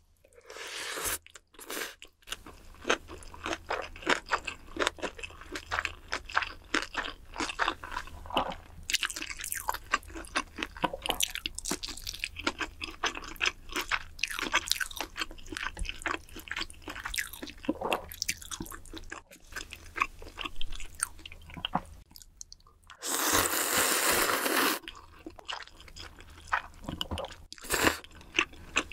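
Close-miked chewing and crunching of Korean bunsik food, with many quick wet mouth clicks. About two-thirds through there is a louder, even noise lasting about two seconds.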